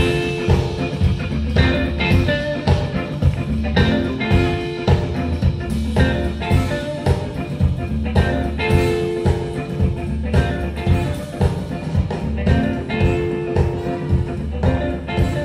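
Live band playing with a steady beat: electric guitars, drum kit and a horn section of trumpet and trombone.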